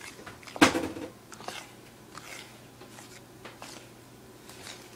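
A fork stirring cornbread batter in a bowl: one sharp clink a little over half a second in, then a few faint scattered taps and scrapes.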